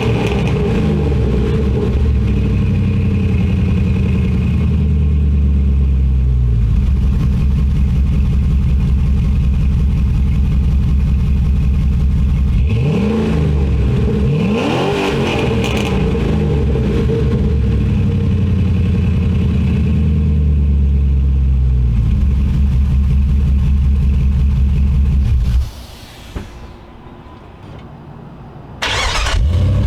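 2004 Jeep Grand Cherokee's 4.7 L V8 idling through a 3-inch exhaust with Tri-Y headers and a Hooker Aero Chamber muffler. A rev is falling back to idle right at the start, and two quick throttle blips rise and fall about 13 and 15 seconds in. Near the end the sound drops much quieter for about three seconds, then returns at full level.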